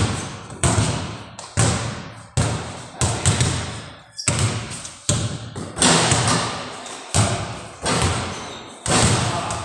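Basketballs bouncing on a hard floor, about a dozen sharp thuds at an uneven pace of roughly one a second, each ringing on in a large echoing room.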